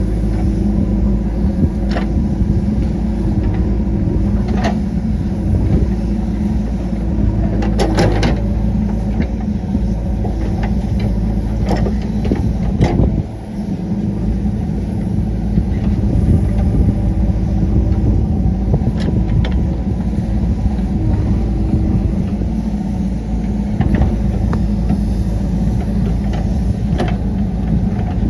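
JCB 3DX backhoe loader's diesel engine running steadily while working, with scattered short knocks and clanks and a brief drop in the engine sound about halfway through.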